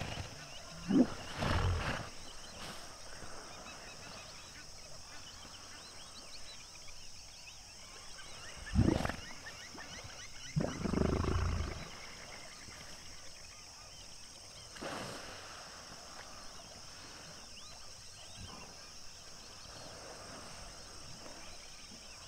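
Hippopotamus pod calling across the water: about four deep, resonant grunting calls spread through the stretch, the longest a little past the middle, with a steady faint high-pitched background between them.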